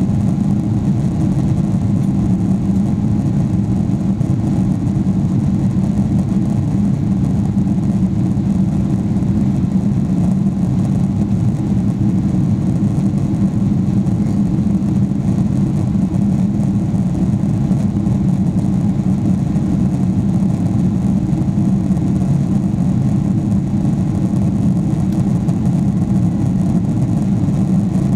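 Steady low rumble of Boeing 777-300ER cabin noise in flight after takeoff: the GE90 engines and the airflow, unchanging throughout.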